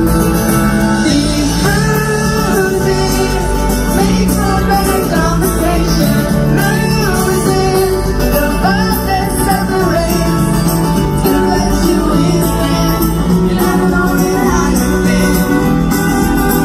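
Live band playing a pop-country song with sung vocals over acoustic guitar and drums.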